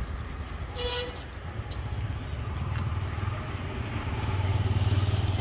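Street traffic: vehicle engines running close by with a low rumble that grows louder about four seconds in, and a short horn toot about a second in.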